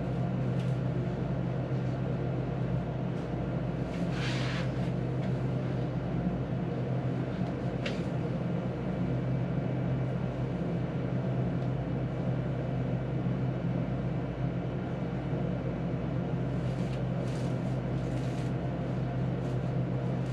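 Steady low background hum with a few faint rustles and one short, thin click about eight seconds in.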